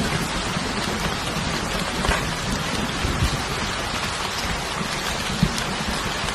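Steady rain falling, an even hiss with scattered drops striking a surface.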